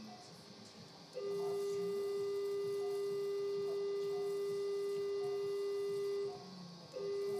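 Electrosurgical (electrocautery) generator's activation tone: a steady beep that sounds for about five seconds while the electrosurgical pencil is cutting, stops, then starts again near the end.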